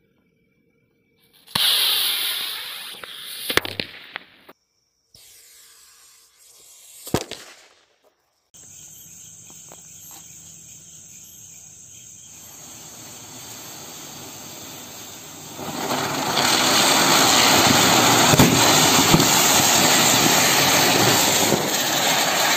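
A firework rocket goes off about a second and a half in with a sudden hiss that fades, and sharp bangs come about two seconds later and again near seven seconds. Then a ring of small ground fireworks sprays sparks, a steady hiss with crackles that grows loud about two-thirds of the way through.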